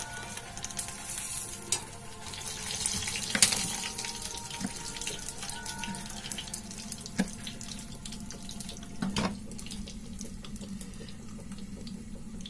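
Steady hiss of oil sizzling in a frying pan, with a few sharp knife taps on a wooden cutting board as a fried green pepper is sliced.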